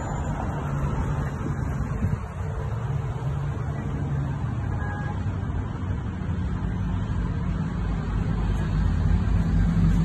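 Steady low rumble of road traffic, growing louder near the end.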